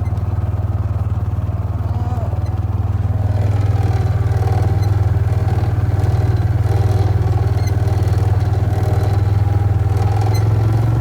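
Vehicle engine running steadily under way, growing a little louder about three and a half seconds in.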